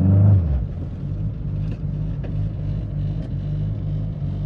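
Honda four-cylinder engine heard from inside the car's cabin while driving. Its pitch climbs, then drops away about half a second in and settles into a steady low drone. It sounds louder than usual because stiff 95A polyurethane motor mounts pass more engine vibration into the body.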